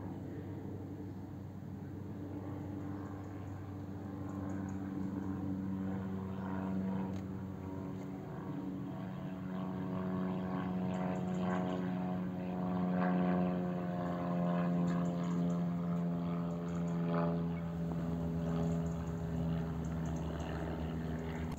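A distant engine droning steadily, its pitch falling slowly. It grows louder toward the middle and then eases off, as it would passing by.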